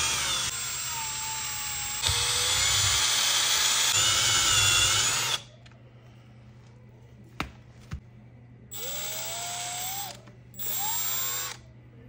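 Milwaukee cordless drill with a hole saw spinning and cutting through raw steak. It runs for about five seconds, then there are two clicks, then two shorter bursts, each rising in pitch as the drill spins up.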